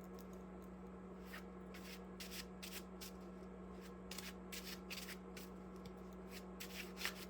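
Tarot cards being shuffled by hand: a faint, irregular series of short papery flicks and slides, over a steady low electrical hum.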